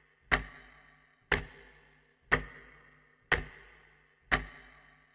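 Clock ticking sound effect: five heavy ticks, one a second, each with a short ringing tail.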